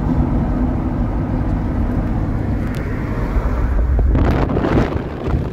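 Steady low rumble of a moving vehicle, with a louder rushing swell about four seconds in.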